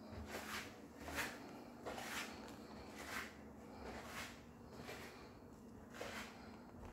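Slow, soft footsteps of someone walking from a tiled floor onto carpet, about one step a second, over a faint steady hum.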